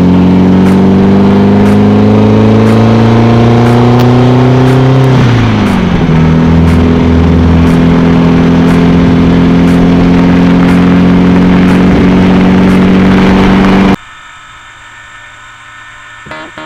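Air-cooled VW flat-four of a Volksrod accelerating hard with its pitch climbing steadily, then dropping about five seconds in as it shifts up, and running steadily at cruising speed. The engine sound cuts off suddenly near the end and gives way to quieter music.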